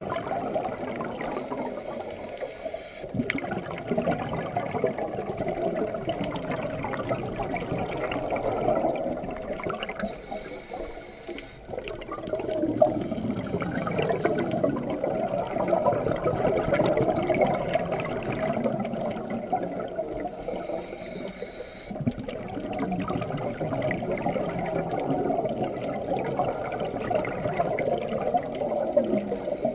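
Scuba regulator exhaust bubbles, heard underwater, with a few brief lulls between breaths.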